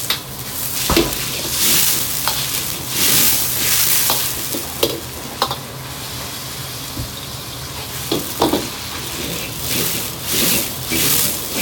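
Noodles sizzling in hot oil in an iron wok over a gas wok burner, being fried into a flat noodle cake; the sizzle swells and fades as the wok is swirled and lifted off the flame, with a few sharp metal clinks from the wok and ladle.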